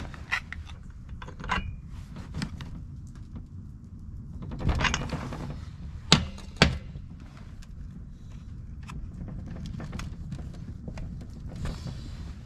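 Light clicks and knocks of hand tools and small parts being handled on a chainsaw, with a brief scraping rustle about five seconds in and two sharp clicks half a second apart just after six seconds.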